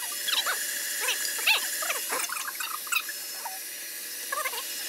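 KitchenAid stand mixer running steadily, whisking egg whites as sugar is added. Over it come many short, squeaky, rising-and-falling whines, an animal's, several a second.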